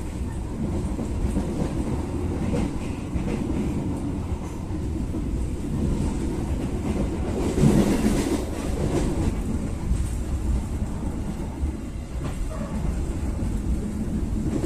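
Steady rumble of a moving passenger train heard from inside the carriage, its wheels running over the rails. The rumble swells briefly about halfway through.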